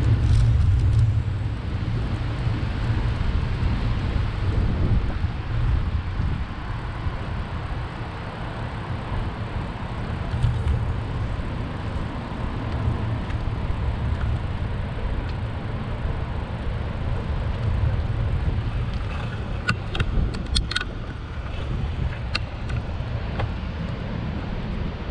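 Road traffic and the ride's own noise, heard from a bicycle moving along a city street: a steady low rumble, with a short run of sharp clicks and rattles about twenty seconds in.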